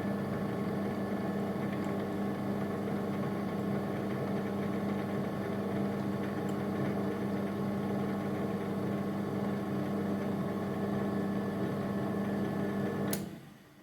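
Milling machine motor running with a steady hum, switched off with a click near the end and dying away quickly.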